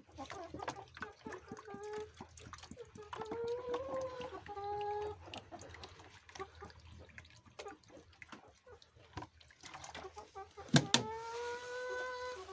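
Chickens calling, about four drawn-out, slightly gliding notes, the longest near the end, over scattered tapping of rain.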